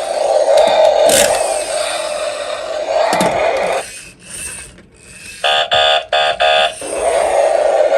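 Battery-powered toy stunt race car: its small electric motor whirs steadily, stops about halfway through, then the car's built-in sound effect gives about four short electronic beeps before the motor whir starts again.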